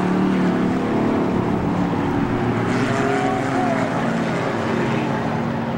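Several stock car engines running at speed around a short asphalt oval. Their pitch shifts up and down as the cars pass.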